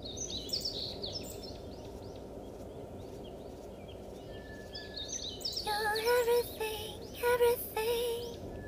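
Outdoor ambience of a steady low rushing noise with birds chirping, busiest in the first second or so. About six seconds in, a melody of short high notes begins over it.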